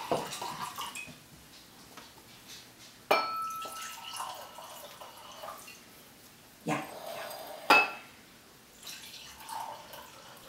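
Red wine glugging and splashing from a bottle into wine glasses in short pours, with a sharp glassy clink that rings on briefly about three seconds in.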